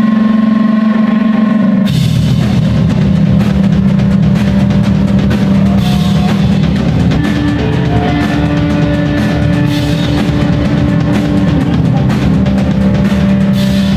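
Heavy rock band of electric guitar, bass guitar and drum kit playing live and loud. A held chord rings for about two seconds, then the drums and the full band come in on a driving riff.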